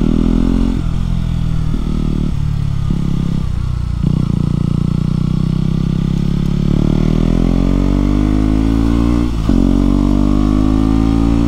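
KTM 125 Duke's single-cylinder four-stroke engine heard from the rider's helmet. It comes on and off the throttle in short bursts at low speed through a roundabout, then pulls away with a steadily rising note, broken once by a gear change near the end.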